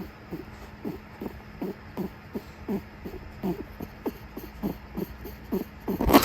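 Netherland Dwarf rabbit grunting in anger, a quick run of short falling grunts about three a second over a steady low hum. The grunting is a sign of an angry, agitated rabbit. Near the end a sudden loud noise cuts across it.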